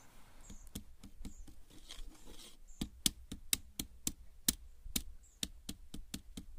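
Sharp clicks and taps from a finger on a thin sheet of ice frozen over a bucket of water, coming faster and louder about halfway through, at about three or four a second.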